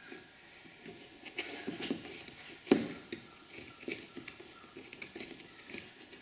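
Hands working a talc-dusted rubber inner tube into a tire on a nylon wheel half: irregular rubbing and handling noises with scattered small clicks, and one sharp knock a little under three seconds in.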